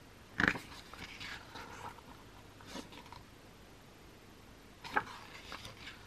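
Pages of a glossy photobook being turned by hand: short papery rustles and flicks, the loudest about half a second in and another near five seconds in, with quieter paper rustling between.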